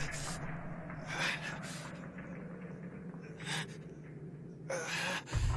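A cartoon fighter's (Tien's) heavy, exhausted gasps for breath, about five short strained breaths over a low steady rumble. A loud, deep rumbling blast sets in suddenly near the end.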